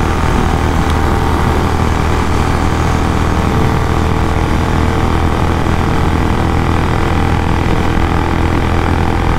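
Royal Enfield Bullet 350's single-cylinder engine running steadily at about 120 km/h, heard from on the bike with heavy wind rushing over the microphone.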